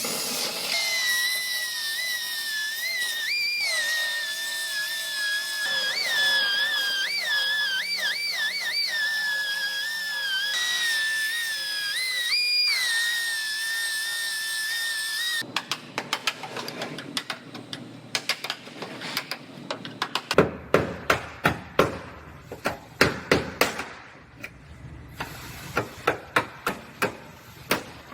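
A power tool whining at a steady high pitch, its pitch jumping up briefly several times, for about fifteen seconds. It cuts off and is followed by a hammer striking sheet metal in irregular blows, a couple a second, while a dented car quarter panel is worked out.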